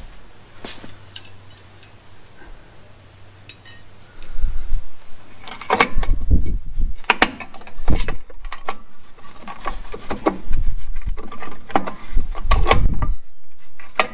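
Steel drum-brake springs and hardware clinking and rattling against the backing plate as they are fitted by hand: a few light metallic chinks at first, then frequent loud knocks and bumps from about four seconds in.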